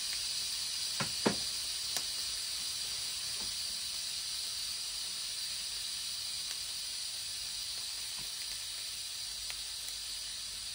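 Steady hiss of steam venting from a Crockpot Express pressure cooker's release valve during a manual pressure release, slowly easing off. A few sharp clicks of metal tongs against the grill or plate come in the first two seconds.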